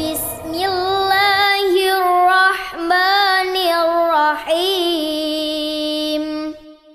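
A child's voice chanting a slow melody in long, wavering held notes. It stops about six and a half seconds in.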